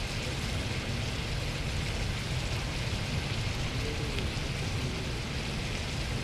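Potatoes and meat frying in a pan over a wood fire, a steady sizzle over a low rumble.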